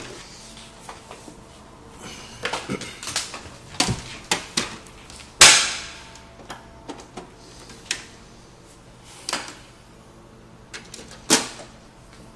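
HP all-in-one printer switching on and running its start-up cycle: a run of irregular mechanical clicks and clacks from its paper-feed mechanism. The loudest knock is about five and a half seconds in, with another sharp one near eleven seconds.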